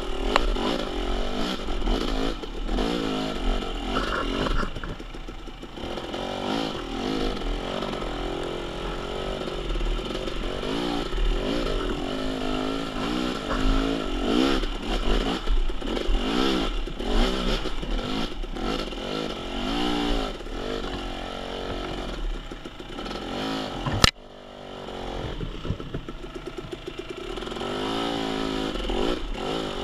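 KTM XC-W 300 TPI two-stroke dirt-bike engine revving up and down over and over on a steep trail climb, with clatter and scraping. A sharp knock comes late on, after which the engine drops quieter for a few seconds before picking up again.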